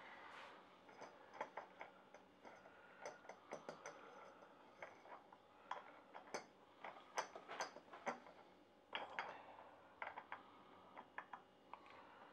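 Quiet, irregular small clicks and light metallic taps as a new oil filter is threaded onto a Suzuki Bandit 1200 engine by hand, the hand working in past the exhaust headers and frame.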